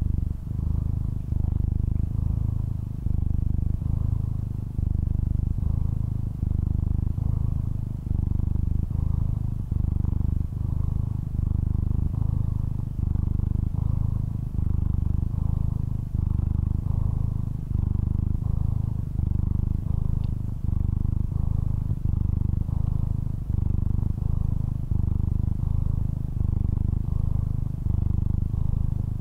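Domestic cat purring, a deep steady rumble that swells and dips with each breath, about once every second and a half.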